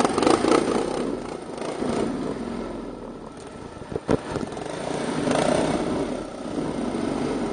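Quad bike (ATV) engines running, with a couple of short sharp knocks about four seconds in.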